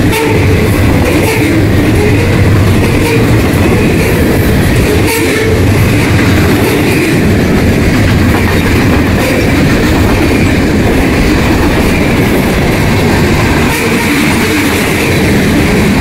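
Loaded freight cars of a CN manifest train, log flatcars then boxcars and tank cars, rolling past at close range. Their steel wheels on the rails make a steady, loud rumble with a rhythmic clickety-clack at the rail joints.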